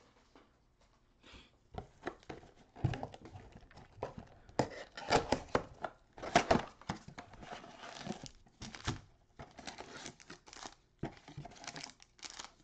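A cardboard trading-card mega box is torn open by hand and its foil-wrapped card packs are pulled out and stacked, making irregular tearing and crinkling that is loudest in the middle.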